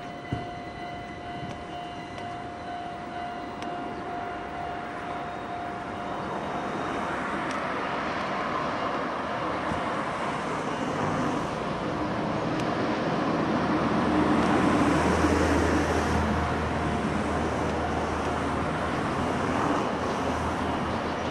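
Level-crossing warning signal sounding with a steady tone, then an Enoshima Electric Railway car approaching on the track. Its running noise grows louder, with a low rumble that peaks about two-thirds of the way through. There is a brief click right at the start.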